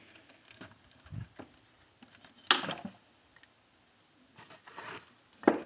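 A few scattered knocks and clunks of handling on a workbench, with no motor running. There is a low thump about a second in, a brief louder clatter about two and a half seconds in, and a sharp click near the end.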